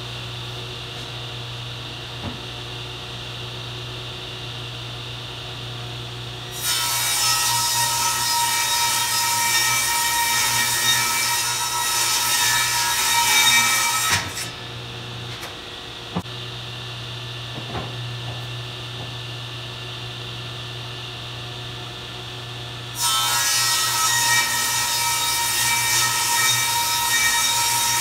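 Craftsman table saw running with its blade spinning free, then ripping through a plywood panel from about a quarter of the way in to about halfway, and again over the last few seconds. Each cut is clearly louder and harsher than the free-running saw.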